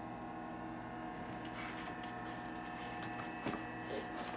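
Pages of a picture book rustling softly as it is handled and turned, with a light tap about three and a half seconds in, over a steady background hum.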